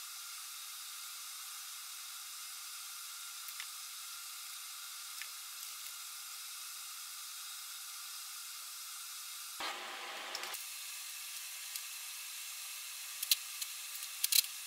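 Steady hiss, with a short rustling patch about ten seconds in and a few light clicks and knocks near the end.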